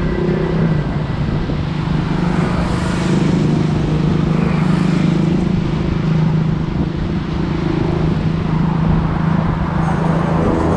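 Road traffic: a motor vehicle running steadily close by, a continuous low hum over road noise.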